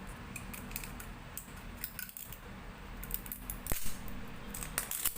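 An air freshener's plastic package being handled and opened: a run of light plastic clicks and rattles, with a sharper click nearly four seconds in and more clicks near the end.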